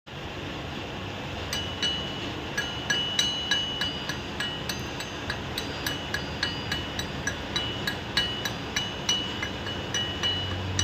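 Repeated hammer strikes on metal, each ringing briefly with a bell-like tone, about two to three a second, starting about a second and a half in.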